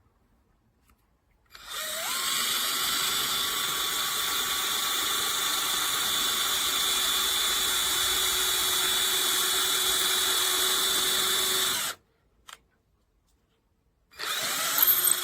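MHPRO 21V cordless drill boring a hole in English oak: the motor spins up about a second and a half in, runs steadily for about ten seconds and cuts off suddenly, then starts again briefly near the end.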